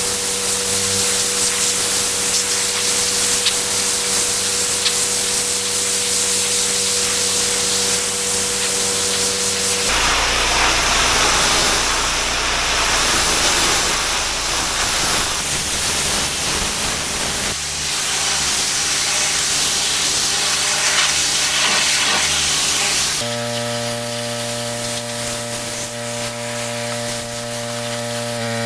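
Pressure washer spraying: a steady hiss of the high-pressure water jet over the droning hum of the machine's motor and pump. The hiss and the pitch of the hum change abruptly three times.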